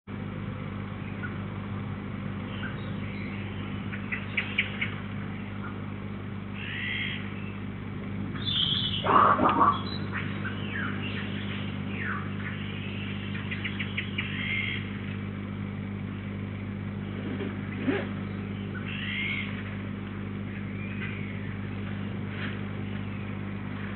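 Wild songbirds chirping and calling around a garden bird feeder, in short scattered phrases, with one louder call about nine seconds in. A steady low hum runs underneath.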